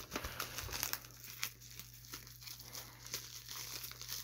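Plastic mailer and bubble-wrap packaging crinkling and rustling in irregular crackles as it is handled and pulled at.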